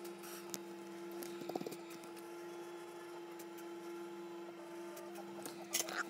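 Steady electrical hum, two even tones, with a few faint taps and rustles of wire being handled in a helping-hands clip.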